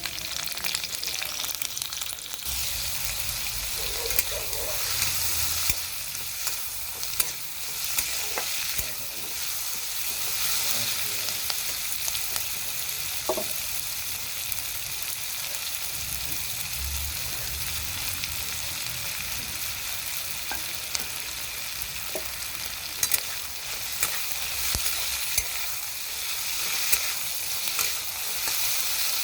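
Food sizzling as it fries in hot oil in a pan, stirred with a spatula that scrapes and clicks against the pan now and then.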